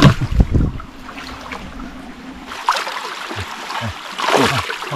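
River water splashing and sloshing as people wade and grope along the bottom by hand, with heavier splashes near the start and another burst about four seconds in.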